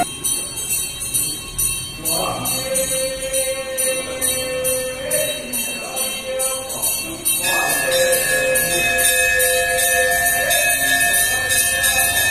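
Music with a steady jingling bell beat, about three or four jingles a second, under a wandering melody. A long held high note comes in about halfway and the music gets a little louder.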